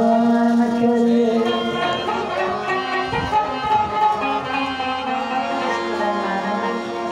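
Qawwali music: a harmonium playing a melody of long, held reed notes between sung lines.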